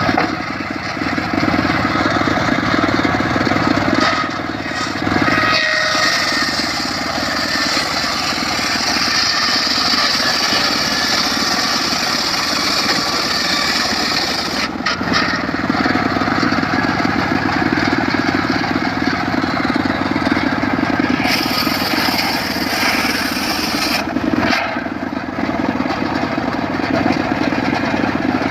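Circular saw running steadily, cutting mahogany: a continuous machine drone, with a harsher, hissing cutting noise while the blade is in the wood, from about 4 s in to about 14 s and again for a few seconds near the end.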